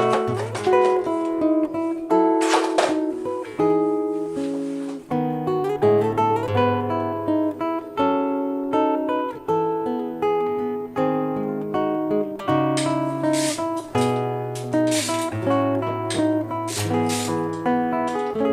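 Background music: plucked acoustic guitar with a rhythmic shaker.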